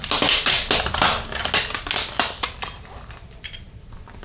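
A car tyre rolling over a metal wire fan grille and a clear plastic sheet, crushing them: a dense run of sharp cracks, snaps and metallic clinks for about two and a half seconds, thinning to scattered ticks.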